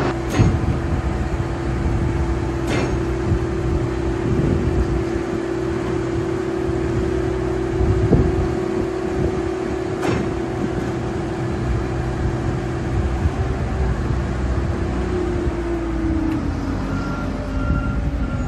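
Marine Travelift boat hoist running with a sailboat in its slings: a steady engine drone whose pitch drops about fifteen seconds in. Three sharp clicks stand out, near the start, about three seconds in and about ten seconds in.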